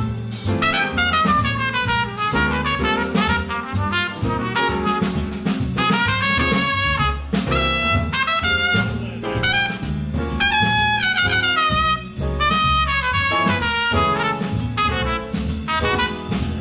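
Trumpet playing a jazz solo over a swinging big-band rhythm section.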